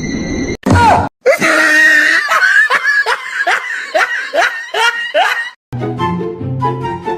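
A quick run of falling-pitch cries, about two to three a second for roughly four seconds, like a dubbed laughing or squealing sound effect. From about six seconds in it gives way to background music with held notes.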